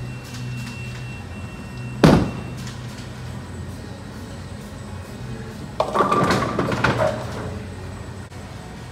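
A bowling ball lands on the wooden lane with a sharp thud about two seconds in, rolls, and nearly four seconds later crashes into the pins with a clatter that lasts about a second.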